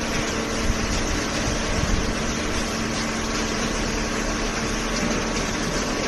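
Automatic horizontal hydraulic cardboard baler running: a steady machine hum from its electric motor and hydraulic pump over a constant mechanical noise.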